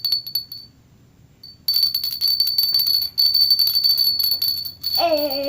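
A small decorative bell being shaken, jingling with a steady high ring and rapid clicks. It stops briefly near the start, then rings on loudly. A hummed or sung voice joins near the end.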